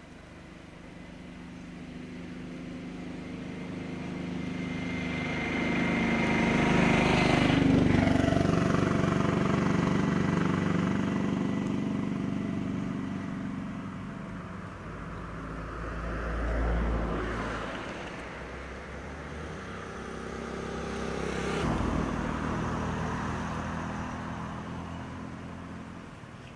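Motor vehicle engines and tyres passing by. One builds up over several seconds, is loudest about eight seconds in, then fades. Two quieter ones pass later.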